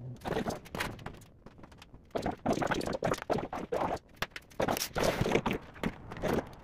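Handling noises: irregular knocks, thunks and rustles as a computer monitor and cables are set down and moved about on a table, with footsteps.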